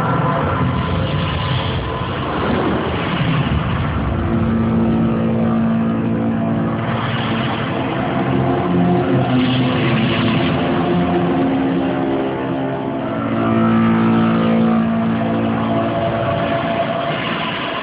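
Weird droning sounds from a sound and light show: layered steady tones that shift to new pitches every few seconds over a rumbling haze.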